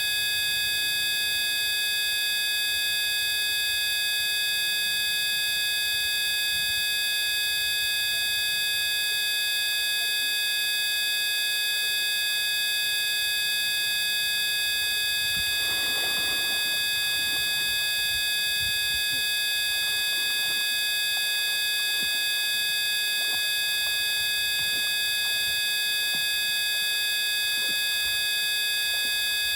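A steady, unchanging buzzing whine made of several high electronic tones held at once, with a faint brief rustle about halfway through.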